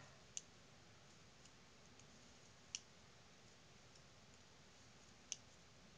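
Knitting needle tips clicking against each other three times, a couple of seconds apart, as stitches are knitted; otherwise near silence.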